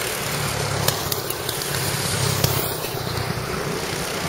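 Go-kart engines running as karts drive past on the circuit, a steady engine hum that swells and fades as each kart goes by.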